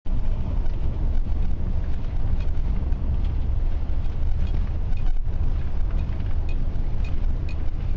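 A truck driving on a snow-covered road, heard from inside the cab: a steady low rumble of engine and tyres on snow, with a few light ticks now and then.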